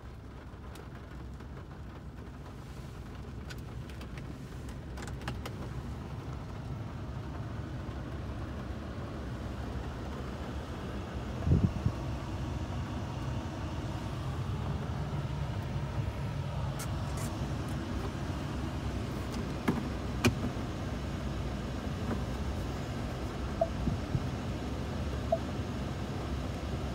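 2020 Ford F-150 pickup's engine running, heard as a steady low rumble inside the cab, with one thump about eleven seconds in and a few light clicks near the end.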